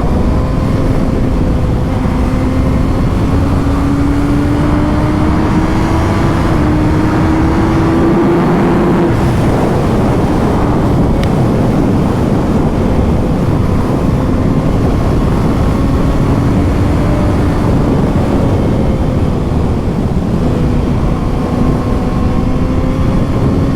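2020 Kawasaki ZX-6R's inline-four engine through its stock exhaust, pulling steadily on the move: the pitch climbs slowly for several seconds, drops back about nine seconds in, then holds fairly steady. Wind noise on the microphone runs under it.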